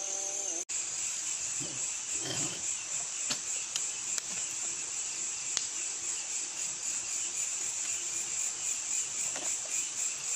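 Night insect chorus, crickets chirring in a steady high-pitched drone.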